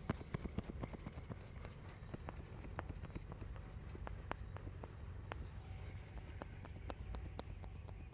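Hands striking skin in a fast massage: quick, irregular sharp slaps and taps. They come thickest in the first second, then more spaced.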